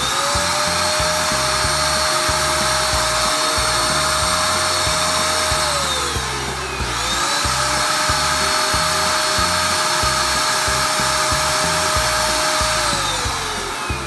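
Eureka Forbes Super Clean handheld vacuum cleaner's motor starting and running with a steady high whine while its hose nozzle sucks up uncooked rice from a tabletop. About six seconds in the motor winds down and straight back up, and near the end it winds down again.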